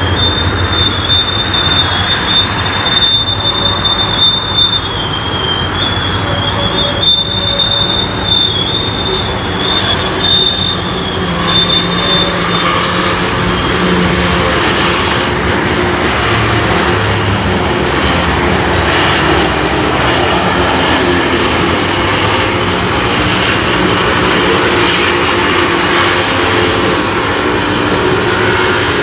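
Railway wheels squealing: a high, steady whine that wavers slightly and stops about twelve seconds in. A steady rumble of rolling rail equipment continues under it and after it.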